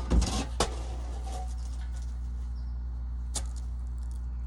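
Old well pressure tank being handled as it is pulled out: a scrape and two knocks in the first second, then a single click a few seconds later, over a steady low hum.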